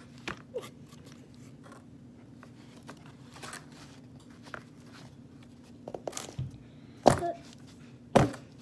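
Cardboard box being handled and folded: scattered crinkles, scrapes and small clicks of corrugated cardboard, with two loud sharp knocks near the end, over a steady low hum.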